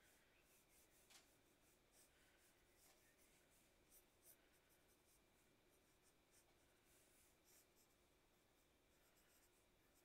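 Faint scratching of a pencil on paper in short, irregular sketching strokes, a few of them a little louder.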